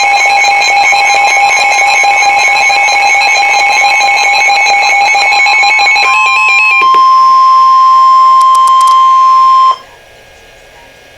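Electronic emergency-alert tones: several warbling, beeping pitches for about six seconds, then the single steady NOAA Weather Radio 1050 Hz warning alarm tone for about four seconds. The alarm tone cuts off abruptly and leaves a low hiss. It signals that an urgent warning message is about to be read.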